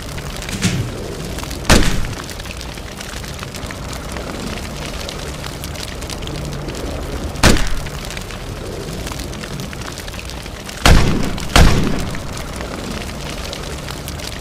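Loud blasts go off over a steady hiss and crackle of burning flames: one about two seconds in, one midway, and two in quick succession about three-quarters through.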